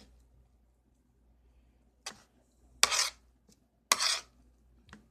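A spoon stirring sticky slime mixture in a pan: three short scraping, squelching strokes about a second apart in the second half.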